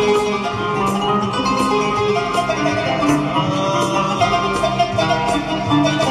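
Live music: a plucked string instrument playing a busy melody, with a man singing a held, wavering line into a microphone in the middle.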